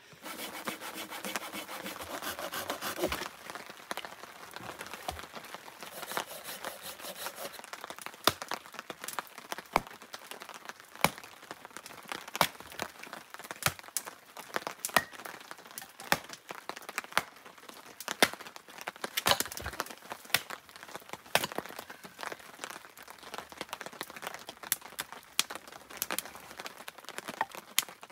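Hatchet splitting firewood: repeated sharp knocks and cracks of wood, a heavier strike every second or two with smaller clicks and clatter of split pieces between. A steady hiss fills the first few seconds.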